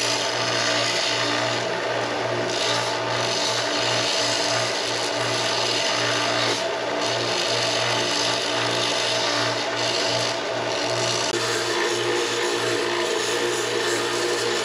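Harbor Freight 1-by-30-inch combination belt sander running steadily with a Douglas fir walking stick pressed against the belt, a continuous sanding rasp over the motor hum. It takes off the stick's top layer and splinters, and the rasp eases briefly three times as the stick is shifted on the belt.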